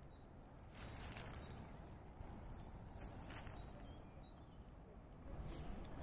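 Quiet outdoor ambience: a few soft footsteps rustling through woodland undergrowth, with faint high bird chirps and a low steady rumble of wind on the microphone.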